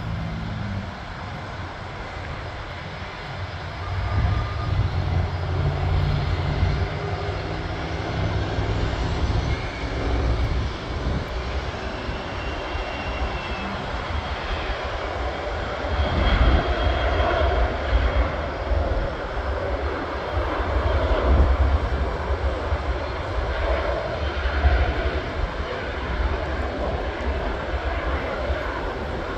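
Business jet engines heard from beside the runway during landing and rollout: a continuous jet rumble with a faint whine, growing louder about halfway through.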